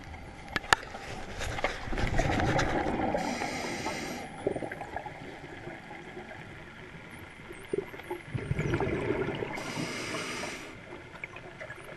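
Scuba diver breathing through an Atomic regulator, twice: each breath is a long rumble of exhaled bubbles ending in a short hiss of inhaled air through the regulator. A few sharp clicks in the first second.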